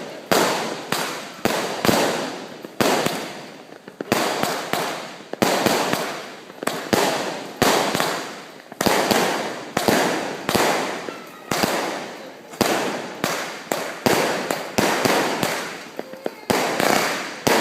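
Fireworks going off in a rapid string of loud bangs, about one or two a second, each trailing off in a short fading echo.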